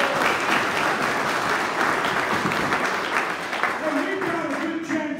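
Audience applauding in a hall, a dense patter of many hands clapping that fades about four seconds in as a man's voice returns over the microphone.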